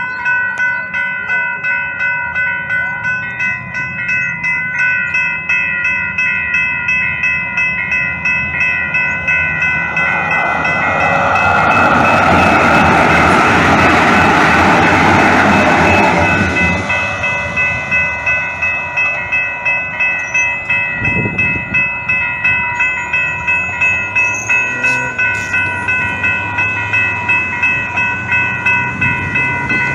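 Level-crossing warning bell ringing about twice a second. About a third of the way in, a light-rail train passes the crossing: a rushing rumble of wheels on rails swells for several seconds, then fades while the bell keeps ringing.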